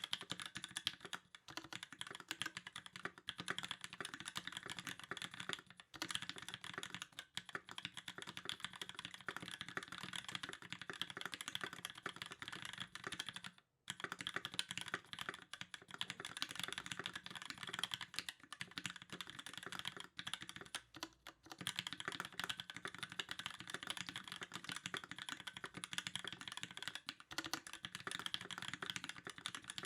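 Fast, continuous typing on a KIRA EXS custom mechanical keyboard with a brass plate, lubed 67g C³ Tangerine linear switches and GMK doubleshot ABS keycaps: a dense stream of keystroke clacks. There is a brief pause about halfway through.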